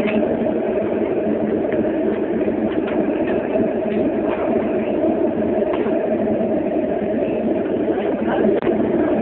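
A small furnace burning hard under forced air while it heats a crucible of metal for casting: a steady rushing roar with a steady hum in it. There is a brief break about 8.5 seconds in.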